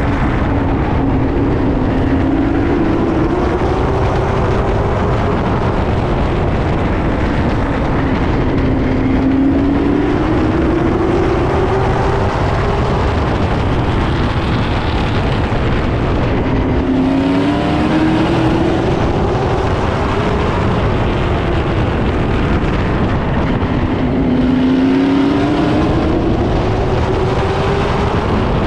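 Late model stock cars racing: a loud, steady roar of V8 engines, with the engine pitch climbing four times, about every eight seconds, as the cars accelerate.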